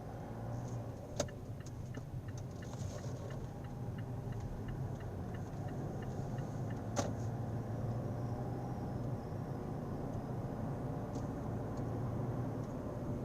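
Steady low hum of a car, with two sharp clicks and a run of faint, evenly spaced ticks in the first half.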